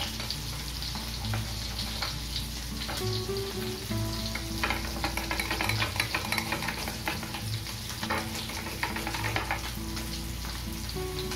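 Lemon rubbed against a stainless-steel grater to take off its zest, a run of rasping scrapes that come thickest in the middle, over a steady sizzle of salmon frying in butter.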